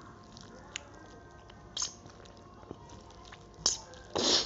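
Close-up mouth sounds of a man eating rice and curry by hand: chewing with wet lip smacks and clicks, two sharper smacks about two and three and a half seconds in. A louder, breathy burst of noise comes just before the end.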